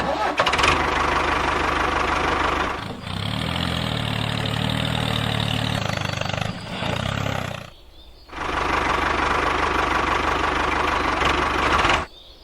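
A small motor running steadily, with a low hum in the middle, stopping for about half a second around eight seconds in, then running again until it cuts off just before the end.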